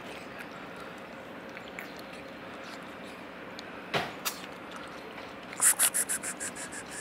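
Cats crunching dry kibble from a plastic tray, with faint scattered ticks over a steady outdoor background. A sharp click comes about four seconds in. Near the end a loud, rapid rattling series of about ten sharp notes, about eight a second, fades away.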